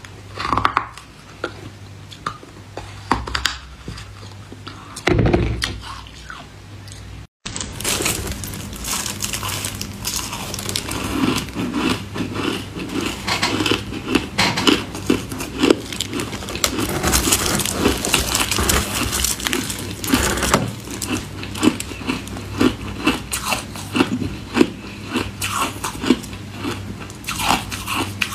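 Ice being bitten and chewed. The first several seconds hold a few sharp crunches into a hard ice block. After an abrupt break, dense, continuous crunching and crackling follows as frosty foam ice is bitten and chewed.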